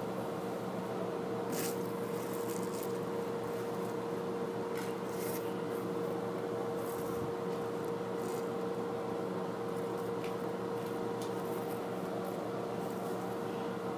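Steady background hum, with faint scattered taps and rustles as card stickers are picked up and laid into a small heart-shaped metal tin.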